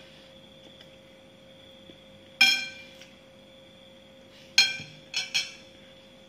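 Metal spoon and fork clinking against a ceramic plate. There is one sharp clink a little over two seconds in and three more close together near the end, each ringing briefly, over a faint steady hum.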